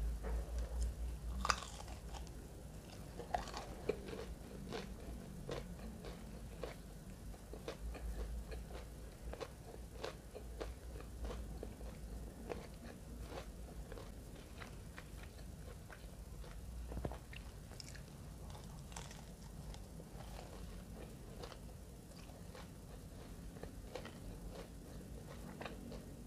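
Breaded fried capelin being bitten and chewed, close to the microphone: a steady run of crisp crunches and clicks, with the loudest bite about a second and a half in.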